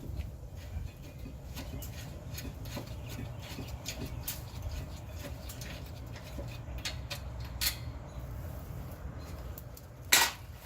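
Scattered small clicks and scrapes of hands and tools working on rear brake parts, with one loud sharp click about ten seconds in, over a steady low hum.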